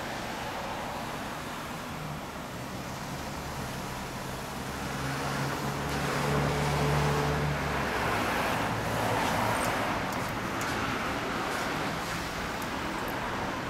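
Road traffic: a motor vehicle passing, its engine hum building and loudest around the middle, then fading away.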